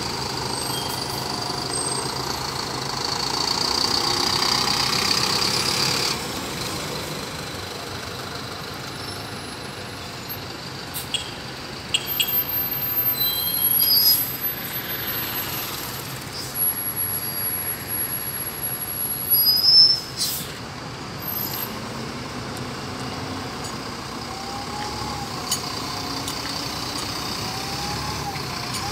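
Diesel city buses pulling out and passing one after another, engines running. Sharp air-brake hisses and clunks come in the middle, the loudest about two-thirds of the way through.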